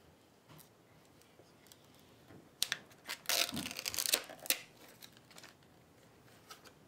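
Plastic wrapping crinkling and tearing as a desktop hard drive is pulled out of it. It comes as a burst of sharp crackles lasting about two seconds, starting a little before halfway.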